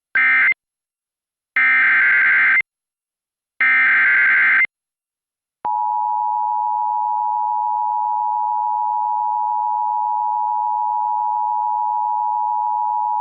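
Emergency Alert System broadcast: three bursts of screeching SAME digital header data, the first short and the next two about a second each, which start a new alert. About six seconds in the steady two-tone EAS attention signal begins and holds.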